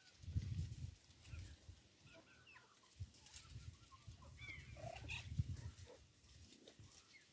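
Backyard chickens clucking softly in short scattered calls, with low rumbling bursts about half a second in and again around the middle that are louder than the calls.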